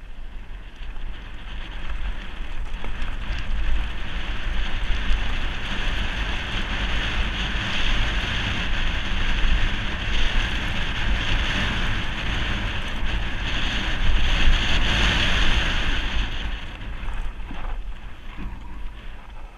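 Wind buffeting a helmet-mounted GoPro's microphone as a mountain bike rides fast down a dirt trail, with a low steady rumble under it. It builds over the first few seconds and eases off near the end.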